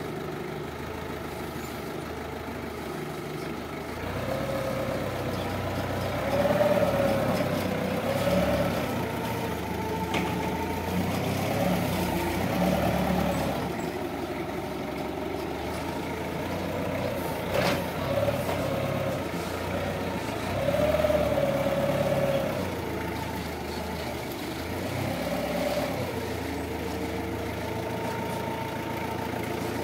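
Linde forklift's engine running and revving up and down repeatedly as the truck drives and lifts a pallet, its tone rising and falling with each rev. A single sharp knock about two-thirds of the way through.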